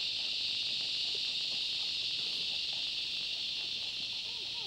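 Steady chorus of cicadas, an even high-pitched shrilling that holds without a break.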